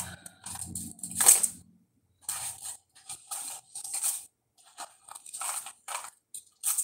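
A small cardboard jewellery gift box being handled and opened: a string of short, scratchy rustles and scrapes, the loudest about a second in.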